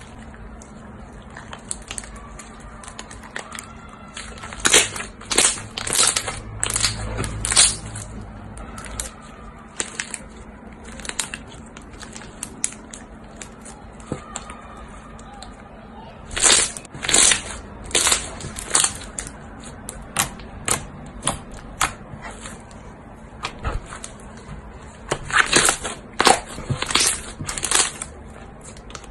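Thick white slime being stretched, folded and squeezed by hand, giving runs of short sharp crackling pops as trapped air is pressed out, in three main spells.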